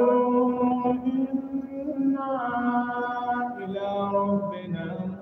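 A man's solo voice chanting Quranic recitation in the melodic tajweed style. He holds long sustained notes with slow ornamental turns in pitch, in phrases separated by brief pauses.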